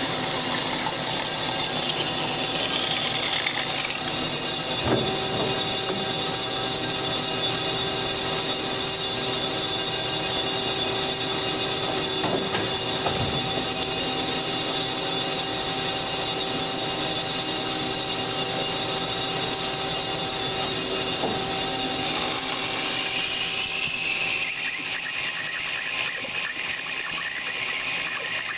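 Cosen C-520NC horizontal band saw cutting 15-5 PH stainless steel: a steady machine hum with several held tones and a high squeal from the blade in the cut. About three-quarters of the way through, the high tone slides to a new pitch and the sound drops slightly.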